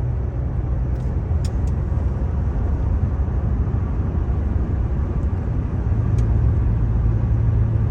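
Car interior noise while driving: steady engine and tyre rumble, with a few faint clicks.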